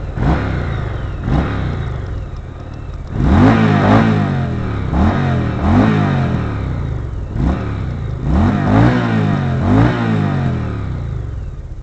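Motorcycle engine revved in a series of quick throttle blips, each rising sharply in pitch and dropping back toward idle, with the blips coming closer together from about three seconds in.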